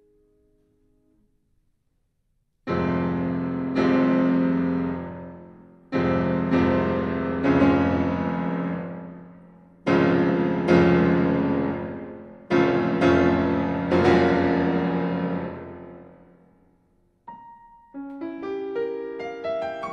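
Solo piano music with no speech: after a few nearly silent seconds, a slow series of loud full chords, each left to ring and die away, then quicker running notes near the end.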